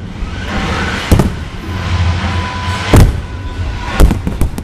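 Fireworks: aerial shells bursting with sharp bangs, one about a second in, a louder one at about three seconds and a quick run of three near the end, over music playing underneath.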